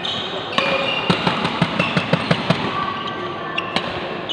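Badminton doubles rally on a court mat: a quick run of sharp knocks and footfalls, about five a second, with shuttlecock hits among them, and short high shoe squeaks as the players push off and stop.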